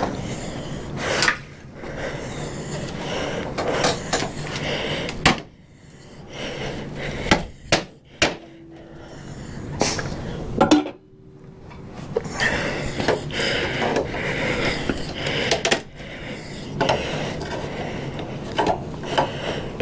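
Wooden shipping crate being taken apart: boards knocking and clattering, with scraping and rattling of wood in between.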